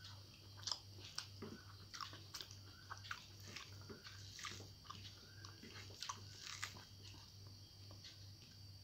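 Close-miked eating: wet mouth clicks and soft chewing of rice mixed with fried water spinach (kolmi shak), eaten by hand, with many short sharp smacks and crackles. A low steady hum runs underneath.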